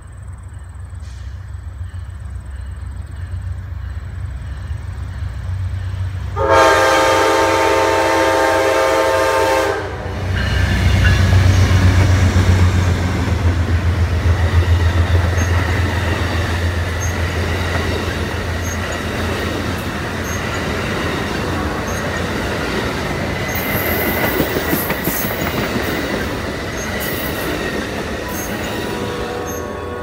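Amtrak passenger train led by diesel locomotives and a Siemens SC-44 Charger approaching and blowing a multi-note air horn for about three seconds, starting about six seconds in. The locomotives then pass with a deep engine rumble, followed by the bi-level passenger cars rolling by with steady wheel clatter and a thin wheel squeal.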